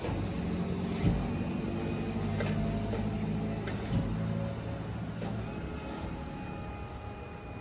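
A vehicle running with a steady low hum, sharp knocks about every second and a half, and faint steady whines in the second half.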